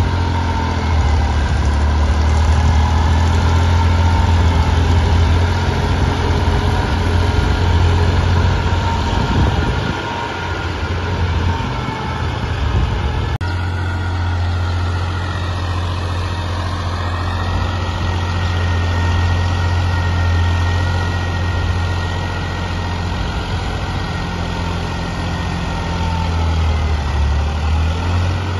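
Tractor's diesel engine running steadily under load, pulling a rotavator through soil in a low gear. The sound changes abruptly about halfway through.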